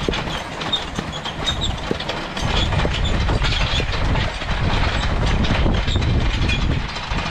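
Excavator track being dragged along the ground by a team of draft horses: a continuous scraping drag full of small clicks, which grows louder and heavier about two and a half seconds in.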